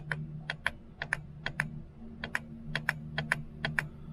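Fingertips tapping on the hard plastic gauge pod: about eighteen sharp, irregular clicks, many in quick pairs like drumming fingers, over a low steady hum.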